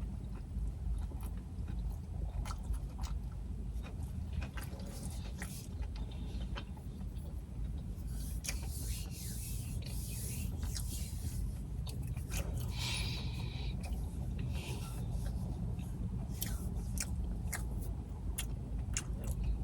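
A person eating fish sliders: chewing, with scraping and rustling as the food and its wrapping are handled, a denser stretch of rustling in the middle, over a steady low hum.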